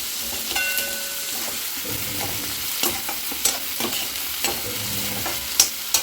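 Onion, green chilli and curry leaves sizzling in hot oil in a pan as the tempering for poha is stirred, with a spatula clicking against the pan several times.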